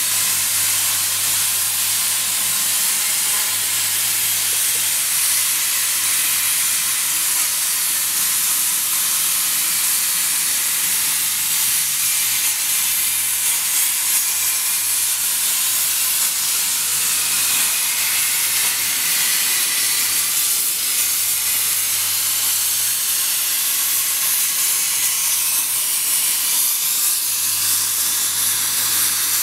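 CNC plasma cutter's torch arc cutting through steel sheet: a loud, steady hiss, with a low hum that drops out and comes back several times.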